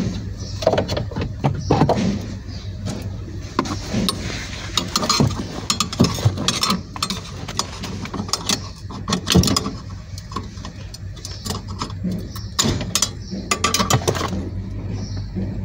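Irregular metallic clicks and knocks of hands and tools working the clutch pedal bracket loose under the dashboard of an Isuzu D-Max pickup, over a steady low hum.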